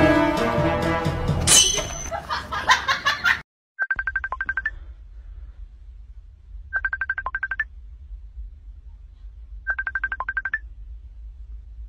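Music that cuts off a few seconds in, then a telephone ringing three times: each ring a quick trill of about a second, the rings about three seconds apart, over a low hum.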